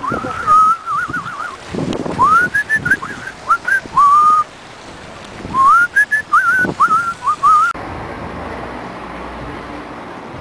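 A person whistling a meandering tune: sliding notes and quick warbles in short phrases. The whistling stops abruptly about three-quarters of the way through, leaving a steady background hiss.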